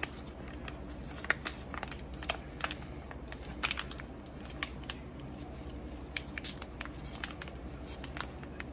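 Soft plastic pouch crinkling and crackling in irregular sharp clicks as a gloved hand squeezes shea butter out of it.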